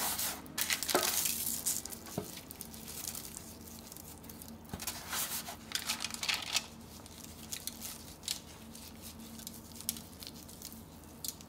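Aluminium foil crinkling and raw chicken drumsticks squishing as hands rub seasoning into them in a foil-lined baking pan. Irregular rustles, busiest in the first second or so and again around five to six seconds in.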